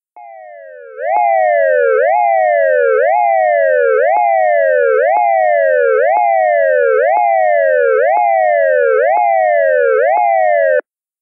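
ASC digital electronic siren controller synthesizing its dual-tone 'wail' siren signal: a pair of close tones jumps up sharply and slides back down about once a second. It comes in quietly, becomes loud about a second in, and cuts off abruptly near the end.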